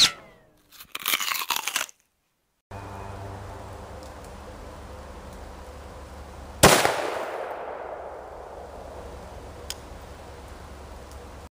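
A single shot from an AR-15 pistol with a 7.5-inch barrel firing a .223 Barnes Vor-Tx 55-grain round, about seven seconds in, sharp and followed by a long fading tail. Before it come a couple of seconds of short crackling, crunching noises, then a steady low hum.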